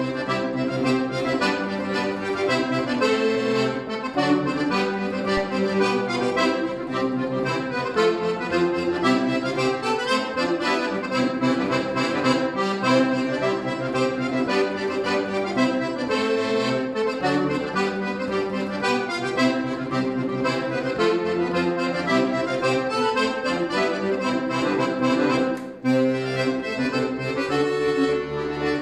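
Scandalli piano accordion played solo: sustained chords and moving lines over a bass part, with a momentary break near the end.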